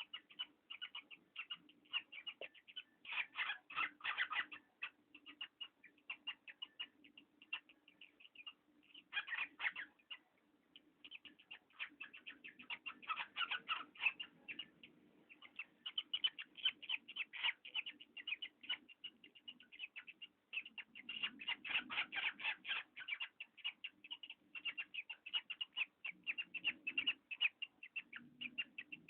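A parrot creaking: a long run of rapid, short, squeaky-creaky notes, many a second. It comes in stretches with brief pauses and a few louder spells.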